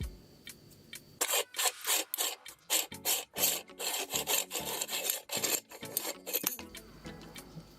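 Meat grinder working through a burger: a run of rough, irregular rasping and scraping strokes that starts about a second in, lasts about five seconds, then stops.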